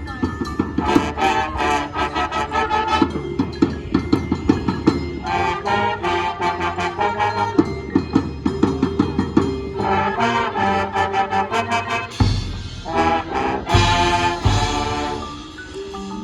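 High school marching band playing loud brass chords in phrases over rapid drum strokes, with heavy low drum hits near the end.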